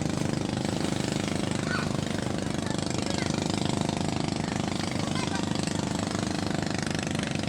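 A small engine running steadily, with a fast, even pulsing and a constant low hum.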